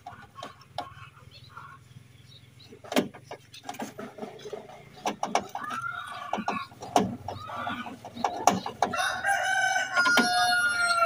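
A rooster crowing: one long, held crow over roughly the last two seconds, the loudest sound, with a few shorter calls a few seconds earlier. Scattered clicks and knocks from a screwdriver working a bolt on a steel car door come between them.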